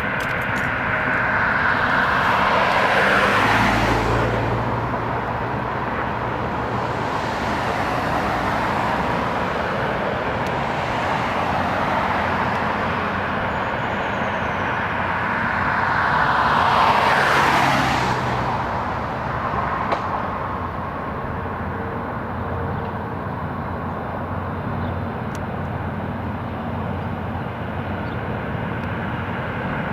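Road traffic: steady tyre and engine noise, with two vehicles passing close by, one about three seconds in and a louder one near the middle.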